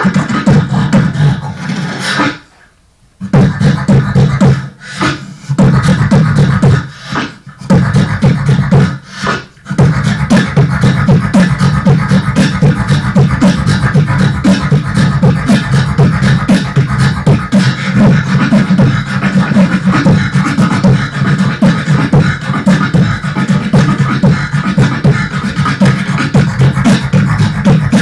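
Solo vocal beatboxing into a handheld microphone: a fast, dense rhythm of mouth-made drum hits over a sustained low bass. It stops dead for about a second early on and breaks briefly a few more times before running without pause for the rest.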